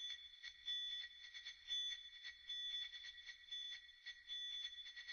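Faint tinkling of small bells, swelling in repeated jingles a little under once a second over a steady high ringing.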